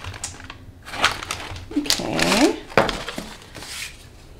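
Cardboard shipping box being pulled open by hand: a few short tearing and crackling bursts of packaging, with a brief rising hum of a voice about two seconds in.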